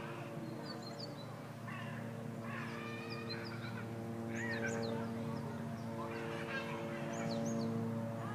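Background sound: a steady low hum, with faint high-pitched children's voices coming and going and short chirps of small birds.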